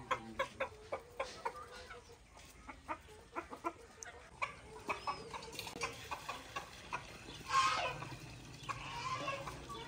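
Chickens clucking: a run of short clucks at two to four a second, then a louder, longer call about seven and a half seconds in.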